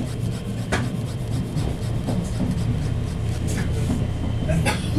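Steady low rumble of a moving commuter train carriage, with irregular scratchy rubbing strokes of a pen on sketchbook paper; sharper scratches stand out about a second in and near the end.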